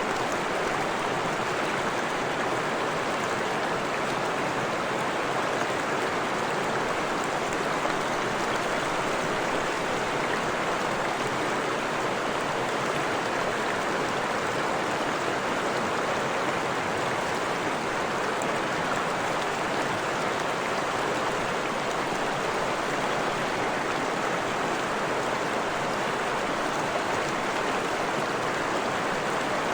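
Forest stream flowing over rocks, a steady rushing babble of water with no change in level.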